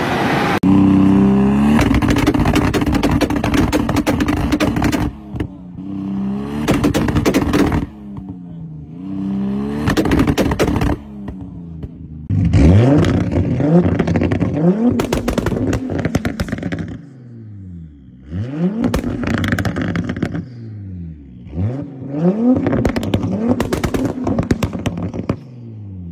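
Toyota Supra inline-six engines revving hard through a run of short exhaust clips: first a sustained high-rev pull, then repeated free revs that climb and fall sharply in pitch. Sharp crackles and pops from the exhaust break in between the revs.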